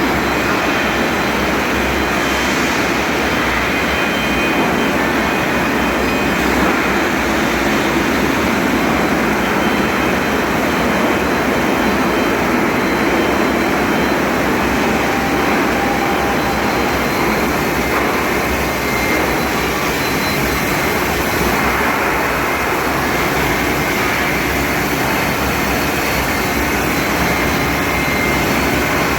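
Steady industrial din from a steel-pipe induction hardening and tempering line, a constant rushing machinery noise with a faint high whine.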